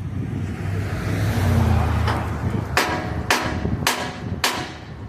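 A hammer striking metal four times, about half a second apart, each blow ringing, over a steady low rumble.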